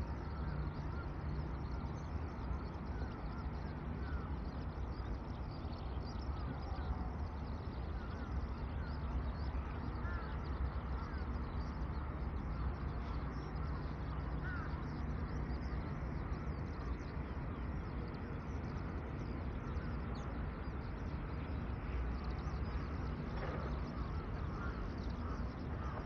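A large flock of crows calling at once: a dense, unbroken chorus of overlapping caws over a steady low hum.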